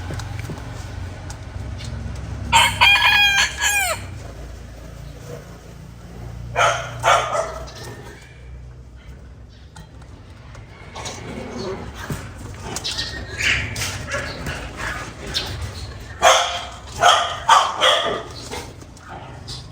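A rooster crows once a couple of seconds in, a single wavering call about a second and a half long. Several shorter, harsh bird calls follow in bunches later on.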